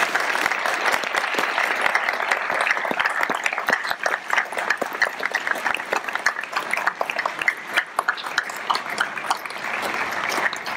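Audience applauding. At first there is a dense wash of clapping; after about four seconds it thins into scattered separate claps.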